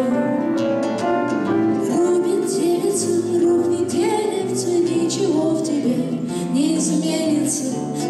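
Live acoustic song: acoustic guitar and grand piano playing a gentle accompaniment together.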